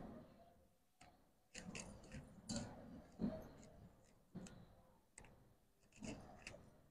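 Faint, irregular clicks and soft taps of hands working a ball of roti dough in a metal bowl.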